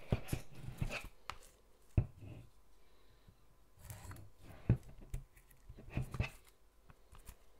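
A folding knife cutting and scraping at the plastic shrink-wrap on a mounted board-game map board, with scattered clicks and two sharp knocks as the board and knife are handled.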